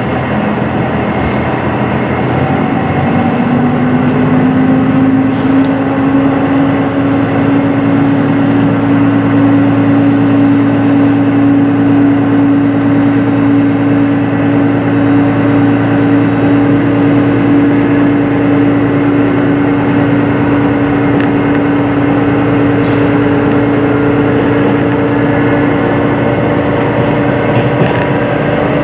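Diesel engine of a HOT7000-series train heard from inside the passenger cabin, running under power with a humming engine note over a rumble of running noise. The pitch rises about two to four seconds in, then holds steady, with a few faint clicks.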